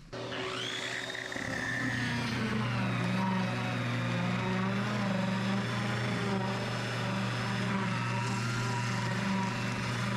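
Angle grinder fitted with a Diamabrush scraping head, starting up and then running steadily under load as it grinds stuck linoleum off an old wood plank floor. The pitch settles after about a second and a half into a steady loud whine over a low hum.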